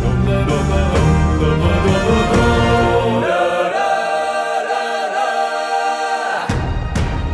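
A song with choir-like singing over bass and drums. About three seconds in the bass and drums drop out, leaving held voices, and they come back near the end.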